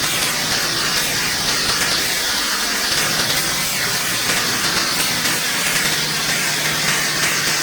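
Pressure washer cleaning concrete: a steady, loud hiss of high-pressure water spray, with the machine's engine running as a low hum underneath.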